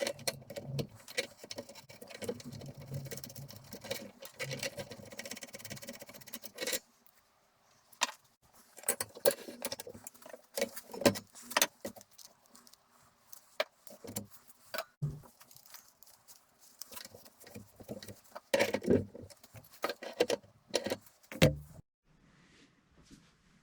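Hands handling parts of a Nutool CH10 hobby drill press: a busy clatter of light rattles for the first several seconds, then scattered clicks and knocks that die away near the end.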